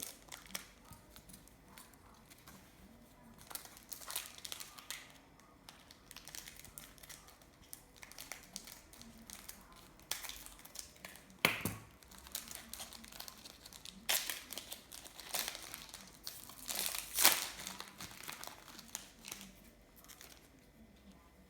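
Plastic wrapper of a trading card pack being torn open and crinkled, with the cards inside handled. It comes as on-and-off rustles and crackles, loudest about 11 and 17 seconds in.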